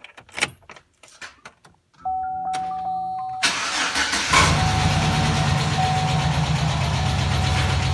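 Keys clicking in the ignition and a steady dash warning tone, then the 2008 Silverado's 4.3-litre V6 cranks and fires about three and a half seconds in and settles into idle. The engine idles with a lifter tick, described as pretty heinous when the truck has sat for a while.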